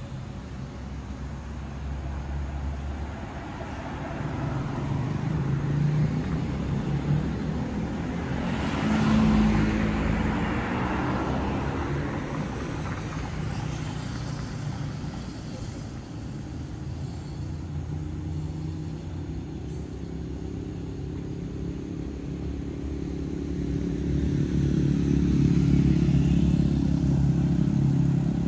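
Road traffic on a city street: cars drive past, one passing close about a third of the way in, and motorcycle engines grow louder near the end.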